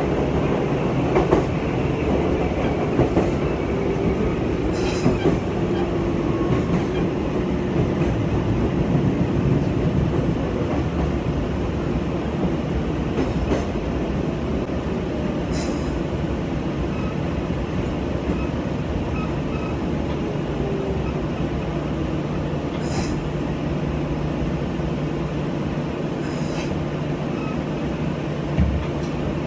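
Meitetsu 6000 series electric train heard from inside the driving cab, its running noise carrying a whine that falls slowly in pitch as the train slows for a station. A few sharp clicks come through along the way.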